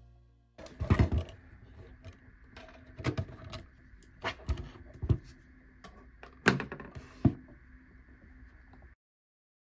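Hard plastic clicks and knocks from the RT7000 automatic tape dispenser as its cutting unit is unclipped by hand and set down on a wooden desk, a series of sharp separate knocks spread out over several seconds.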